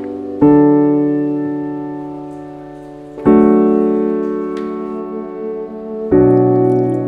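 Background music: slow piano chords, a new chord struck about every three seconds and left to ring and fade.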